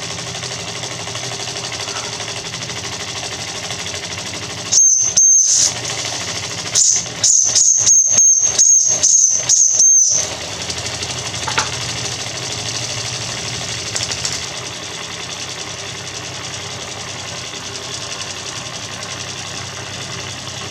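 Mamod SL1 live-steam locomotive's oscillating cylinders running with a steady mechanical chatter. From about five seconds in, loud bursts of hissing steam with a high whistling edge come roughly twice a second for about five seconds, then stop.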